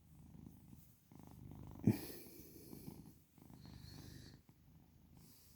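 Domestic cat purring while being petted, the purr swelling and dipping with each breath in and out, about once a second. A short sharp click about two seconds in.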